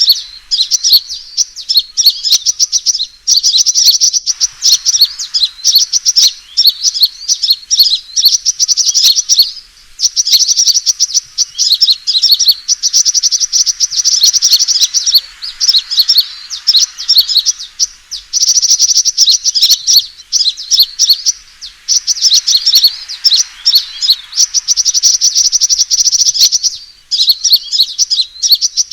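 Sunbird (Indonesian 'kolibri') fighting call used as a lure recording. It is a loud, rapid, high-pitched twittering trill repeated in phrases of a second or two with brief gaps between them.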